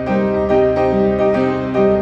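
Background piano music: a gentle melody of single notes struck about two a second over sustained chords.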